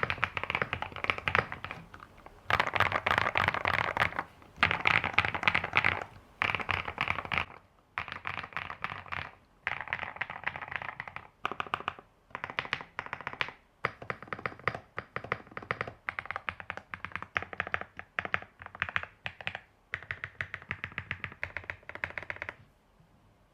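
Typing on an Epomaker RT98 mechanical keyboard with stock Epomaker Creamy Jade 50gf linear switches and PBT keycaps. Fast bursts of keystrokes for the first several seconds, then shorter runs of more separate presses with brief pauses between them, stopping shortly before the end.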